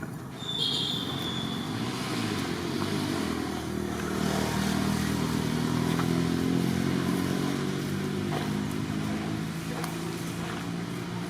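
A motor vehicle engine running close by, growing louder through the middle and then easing off as it passes. A brief high-pitched tone sounds about half a second in.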